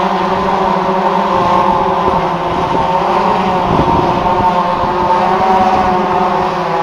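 Large multirotor drone's propellers and motors buzzing steadily, a wasp-like drone, with the pitch wavering slightly around the middle.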